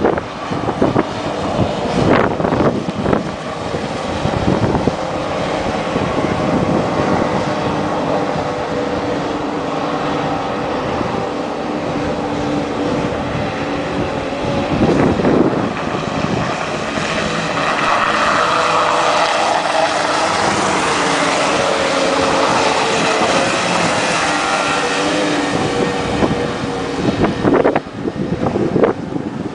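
Thundercat racing inflatables' two-stroke outboard engines running hard as several boats race, their steady whine swelling louder past the middle. Wind buffets the microphone now and then.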